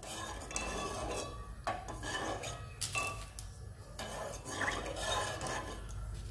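Steel spoon stirring milk in an aluminium pan, scraping and clinking irregularly against the pan's sides and bottom.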